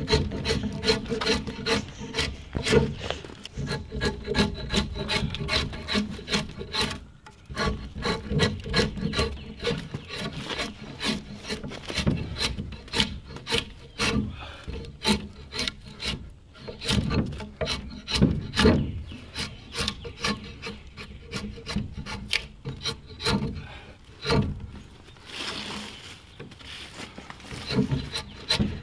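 An 8-inch straight drawknife shaving bark off a wooden fence post: short, sharp scraping strokes, a few a second, as the blade is pulled down the post again and again.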